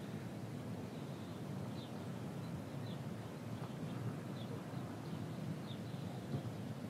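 Outdoor ambience: a small bird giving short, high chirps every second or so over a steady low background rumble.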